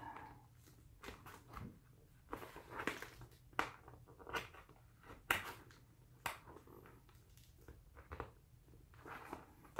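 Faint handling noise of a football helmet and its chin strap as a chin-strap snap is worked onto the shell: scattered sharp plastic clicks and short scuffs and rustles.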